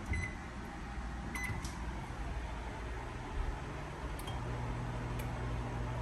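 GE JVM3160DF5WW over-the-range microwave oven being started empty for a test run: two keypad beeps, a couple of clicks, then the oven starts running with a steady low hum that grows louder about four seconds in.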